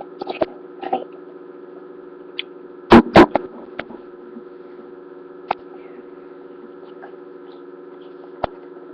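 Steady electrical hum, broken about three seconds in by two loud knocks in quick succession, with a few faint clicks scattered before and after.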